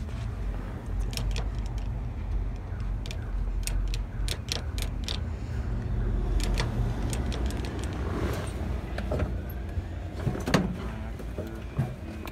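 Steady low rumble with a scatter of sharp clicks and knocks as the interior of a parked 1981 Jeep CJ7 is handled, including its four-speed manual gear lever.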